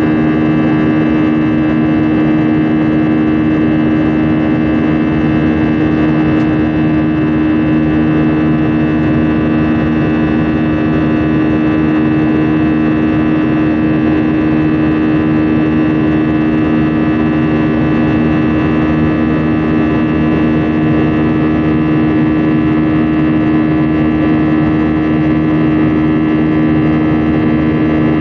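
Airbus A320's engines and airflow heard inside the cabin over the wing while the airliner climbs after takeoff. A loud, steady drone with a strong low hum and fixed higher tones that do not change.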